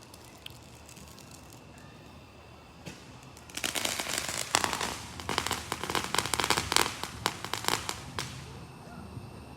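Fireworks crackling: a dense, rapid run of small pops that begins about three and a half seconds in, carries on for about five seconds and trails off.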